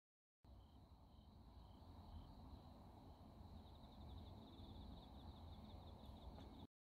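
Faint night insects, crickets, chirping: a steady high ringing with slow regular chirps at first, then a rapid trill from about halfway, over a low background rumble. It cuts off abruptly near the end.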